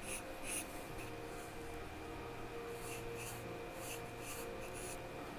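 Charcoal scratching across drawing paper in short strokes: two near the start, then a quick run of about six from about three seconds in.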